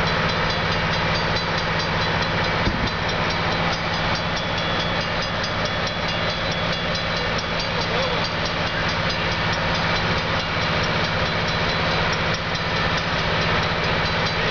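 Diesel locomotive of a stopped passenger train idling steadily, a continuous low engine drone with a single knock about three seconds in.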